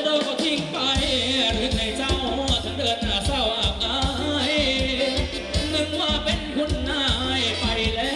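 Live band playing upbeat Thai ramwong dance music, with singing over a steady drum beat; the bass drops out briefly near the start.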